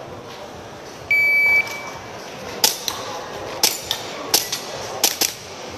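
A shot timer gives one steady, high-pitched start beep lasting about half a second, then a pistol fires a rapid string of shots, a sharp crack roughly every three-quarters of a second, each followed closely by a quieter one.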